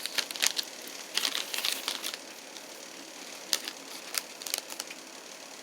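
Crinkly snack-bar wrapper being handled, in two bursts of sharp crackling: one in the first two seconds and another a little past the middle.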